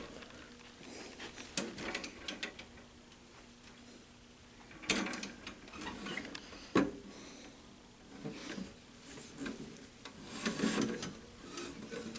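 Intermittent handling noises: scattered clicks, knocks and rustling, with sharp clicks about a second and a half in and again near seven seconds, over a faint steady hum.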